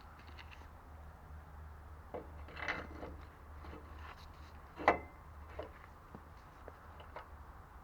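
Scattered handling knocks and rubbing as tools and parts are moved, with one sharp knock about five seconds in, over a faint steady low hum.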